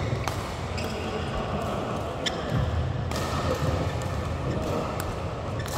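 Badminton play on a hall court: a handful of sharp clicks of rackets striking the shuttlecock, over the thud and scuff of players' shoes on the court floor.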